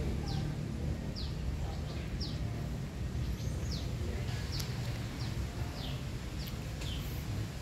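A small bird calling over and over, a short high falling chirp about once a second, over a steady low rumble.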